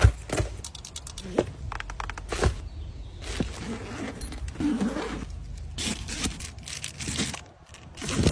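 Small items and plastic containers being handled: a sharp click at the start, a quick run of clicks and taps soon after, then rustling with a few more taps.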